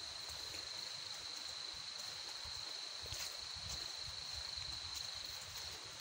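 Insects droning steadily in the jungle, one continuous high-pitched tone, over soft irregular footsteps and rustling on a forest trail.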